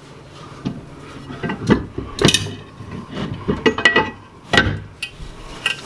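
Irregular metallic clinks and knocks of hand tools and parts against a CR-V rear differential housing as it is being worked apart by hand, about half a dozen sharp strikes with short ringing.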